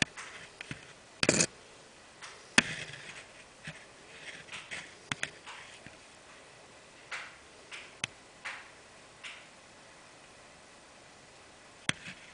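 Handling noise: scattered light rustles, rubs and clicks as a leather cue-case tube is held and turned in the hand, with a louder brief brushing rub about a second in and sharp clicks shortly after and near the end.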